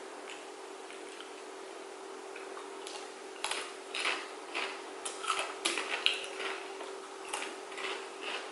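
Crunchy biting and chewing close to the microphone: after about three seconds, a run of irregular sharp crackles, over a steady low hum.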